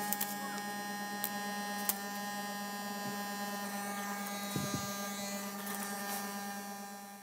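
A small brushed DC hobby motor spins a plastic propeller at a steady speed, giving a steady electric whine over a low hum. There are a few light knocks as the board is handled, the clearest a little past halfway.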